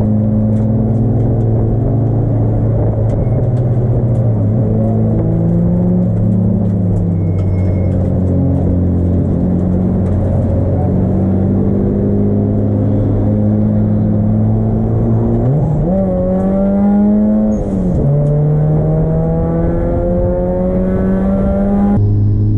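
Turbocharged Honda D16 four-cylinder engine of an EK Civic race car running hard on track. It holds fairly steady revs for most of the time, revs up sharply about sixteen seconds in, falls back a couple of seconds later, then climbs steadily again.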